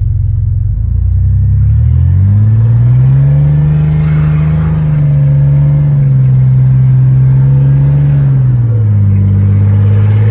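Chevy pickup truck engine running under throttle: it revs up about two seconds in, holds the higher speed for several seconds, then eases back down near the end, as the rear-wheel-drive truck works to get moving on snow.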